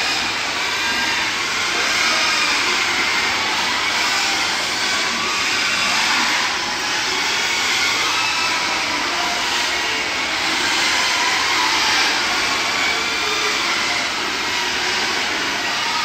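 Continuous loud din of many sows in gestation stalls squealing together, their cries blending into a steady roar with faint wavering high squeals rising out of it.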